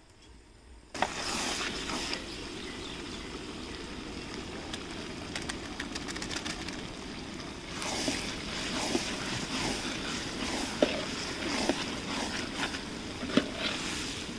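Mutton frying in a large aluminium pot: a steady sizzling hiss that starts suddenly about a second in, with a metal spatula scraping and knocking against the pot, more often in the second half.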